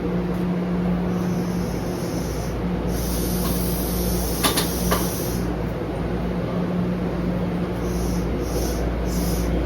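Steady low hum of a Blue Line subway train standing at the station. About three seconds in, a hiss of air lasts a couple of seconds, with a few sharp clicks in the middle of it. Short hisses follow near the end.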